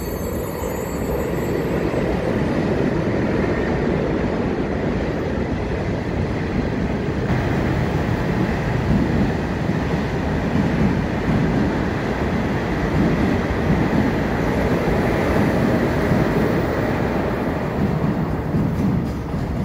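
Seoul Subway Line 1 express electric train pulling into the station: a steady rumble of wheels on the rails that grows louder over the first two seconds, then stays loud with small swells as the cars pass.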